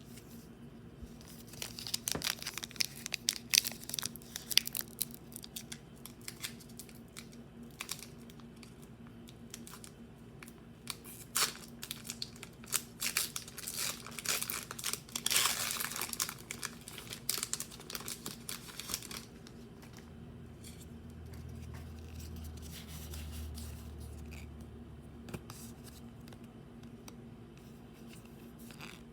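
Crinkly packaging of a Pokémon card collection being torn open and handled, as a dense run of sharp crackles and rustles. It goes quiet after about nineteen seconds.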